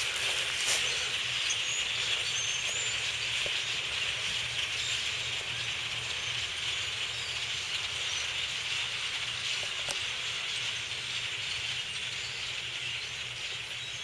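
A huge flock of birds calling all at once, merging into a dense, steady chatter that fades slightly toward the end.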